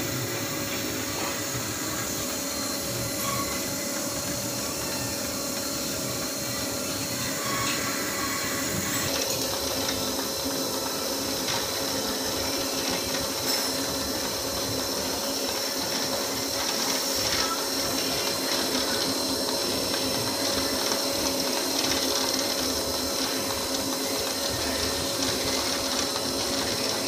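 Semi-automatic long cotton wick machine running: a steady motor whir with its rollers and belt turning as it rolls cotton into long wicks. It gets a little louder and brighter about a third of the way in.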